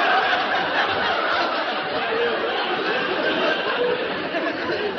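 Studio audience laughing in one long, sustained wave after a joke, easing slightly toward the end.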